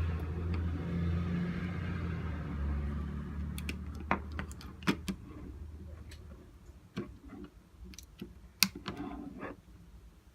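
A low rumble fades away over the first six seconds. Over it, from a few seconds in, come scattered small sharp clicks and taps as iPhone parts and small tools are handled during reassembly.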